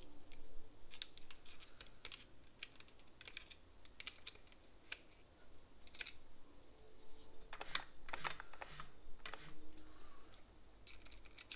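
Light, irregular clicks and taps from the mechanism of a Singer 403A sewing machine as its hand wheel is turned slowly by hand to work the stiff zigzag needle bar, with a closer run of clicks near the end.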